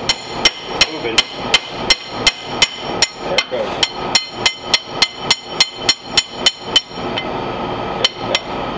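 Hammer blows on a long steel drift rod against a Ford Model A transmission, knocking out the old pedal shaft and fork. The blows are steady and ringing, metal on metal, about three a second for roughly seven seconds, then two more single blows after a pause.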